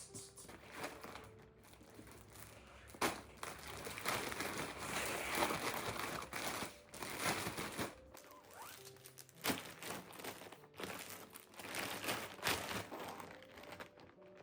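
Crinkling, rustling handling noise with scattered short knocks and clicks, loudest in the middle.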